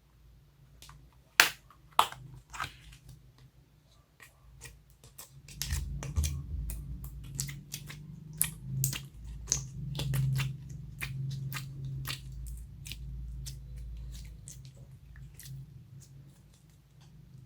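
Homemade slime being squished and kneaded by hand: a steady run of clicks and crackling pops, with two sharp snaps about a second and a half and two seconds in. From about five and a half seconds in there is heavier, lower squishing under the clicks.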